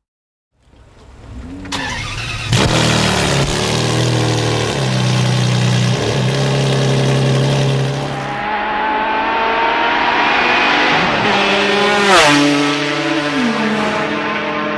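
Supercar engine revving, the pitch rising and falling with each blip. Later the car runs at speed with a high, steady engine note. About twelve seconds in that note drops steeply.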